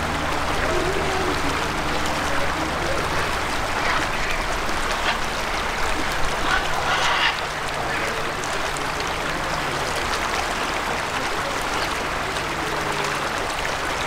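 Waterfowl calling over a steady low hum and background hiss, with a louder burst of calls about six to seven seconds in.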